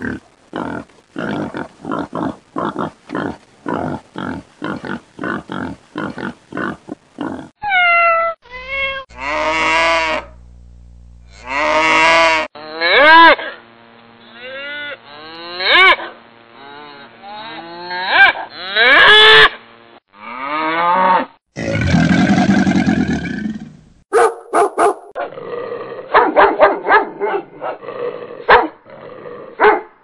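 A sequence of animal sound effects: a bear grunting in short rhythmic huffs, about three a second, for the first several seconds, then drawn-out cow moos that bend in pitch.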